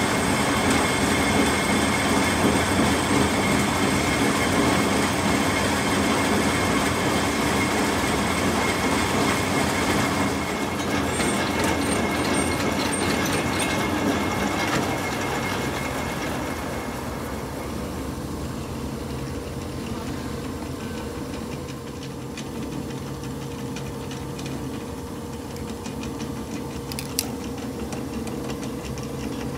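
Manual metal lathe running and turning a large metal gear blank, a steady mechanical clatter of the machine and cut. It gets quieter about halfway through, and there is one sharp click near the end.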